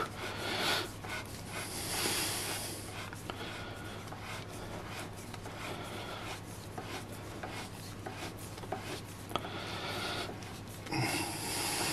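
Hand rubbing and scraping on an Eminence PSD2002S compression driver as it is turned by the palm onto its screw thread, loudest at the start and again near the end, with a few small clicks. A faint steady hum lies underneath.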